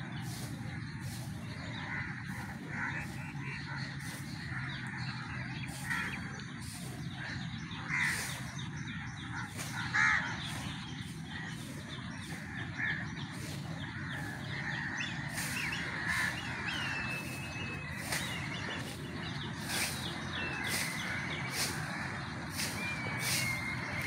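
Crows cawing repeatedly, with harsh calls every one to three seconds. Thinner whistled bird chirps join in the second half, over a steady low hum.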